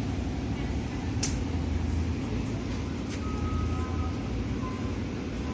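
A steady low engine rumble, with two short sharp clicks about a second and three seconds in.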